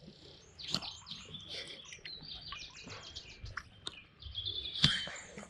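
A songbird singing in quick runs of high chirps and trills. A short sharp knock, the loudest sound, comes near the end.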